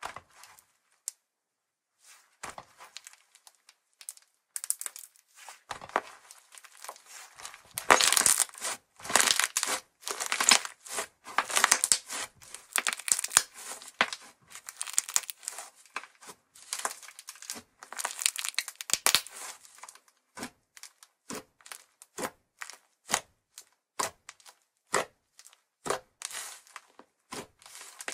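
Thick white slime being stretched, folded and pressed by hand, giving a crinkly, tearing crackle. The crackle comes thick in the middle, then turns into separate sharp pops toward the end.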